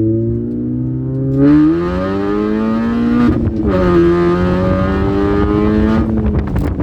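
Supercharged 1.6-litre four-cylinder engine of a 2004 Mini Cooper S accelerating hard, its pitch rising, with a gear change about three and a half seconds in, then pulling on at a steadier pitch before easing off near the end.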